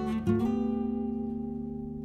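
Background music on guitar: a chord strummed about a quarter second in rings on and slowly fades.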